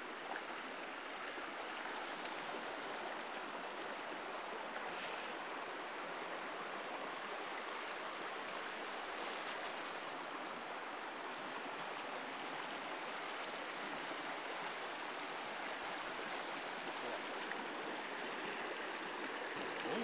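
Shallow mountain river flowing over rocks: a steady rush of running water.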